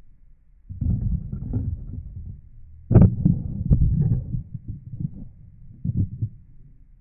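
Handling noise of a camera being moved: irregular low thuds and rumbling rubs against the microphone, with one sharper knock about three seconds in.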